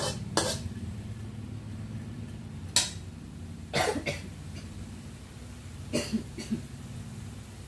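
Metal spatula scraping and knocking in a wok while stir-frying bean sprouts: a handful of short, sharp strokes a second or more apart, over a steady low hum.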